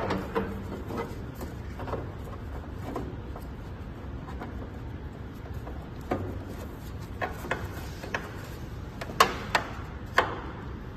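Gloved hands handling the inside of a sheet-metal charging cabinet: scattered light knocks, taps and rubbing against the panels, with three sharper knocks near the end.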